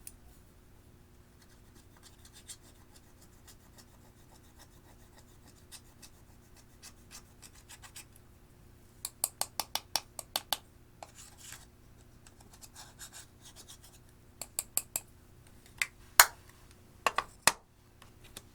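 Clear slime being worked by hand, giving scattered faint ticks and then runs of sharp clicking pops: a quick string of about eight, and later several louder ones near the end.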